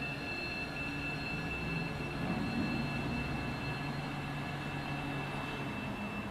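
Electric tram pulling into a stop and halting, with a low hum from its drive and a steady high-pitched whine throughout.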